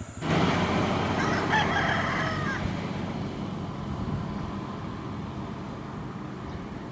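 A rooster crowing once, starting suddenly a fraction of a second in and lasting about two and a half seconds, followed by a steady background noise.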